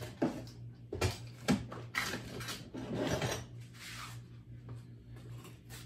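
Workshop handling noise: a few sharp knocks and clatters of tools being picked up and set down, then rummaging and rubbing, over a steady low hum.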